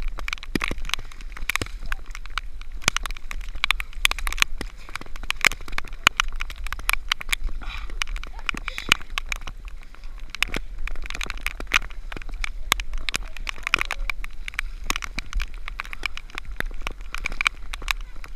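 Wet mud sloshing and spattering close to the camera as a person crawls through a mud pit. Dense, irregular crackling clicks of water and mud hit the camera housing.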